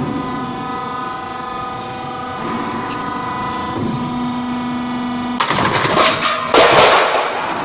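Round-wave roofing sheet roll forming machine running with a steady hum of several tones. About five and a half seconds in comes a loud burst of knocks and rushing noise lasting under two seconds.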